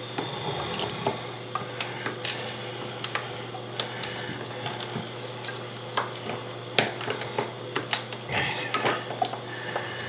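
Irregular small clicks and knocks of hands working at a bathroom faucet, with water dripping and trickling and a steady low hum underneath.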